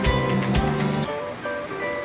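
Background music: a drum beat under a melody of short notes, the drums dropping out about a second in and leaving the melody alone.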